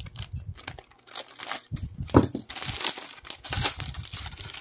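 Clear plastic bag crinkling in the hands as it is opened to take out a fluffy buffing pad, an irregular run of sharp crackles.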